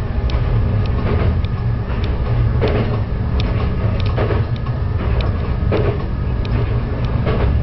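Diesel railcar running along the line: a steady low rumble of engine and wheels, with irregular knocks and rattles.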